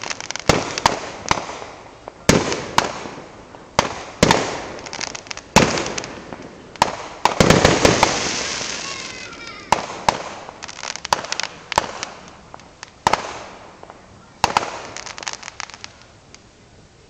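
Aerial fireworks shells bursting one after another in sharp bangs that echo away. Clusters of rapid crackling are mixed in, and the thickest volley comes about halfway through.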